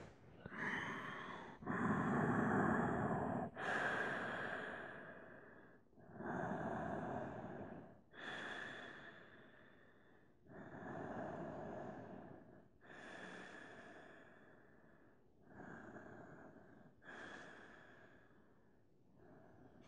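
A man breathing slowly and deeply, with long inhales and exhales of about two seconds each, growing gradually quieter.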